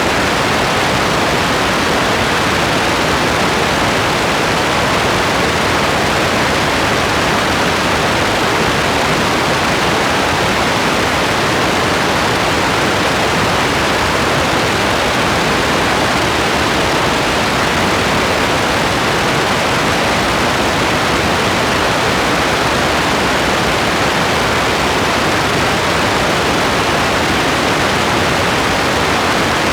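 Steady heavy rain, a loud, even hiss that does not change.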